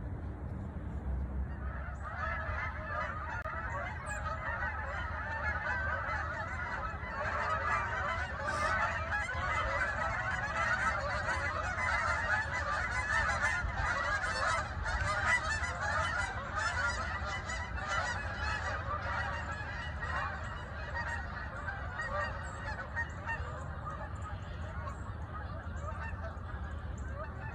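A large flock of geese honking, many calls overlapping into a continuous din that swells in about two seconds in.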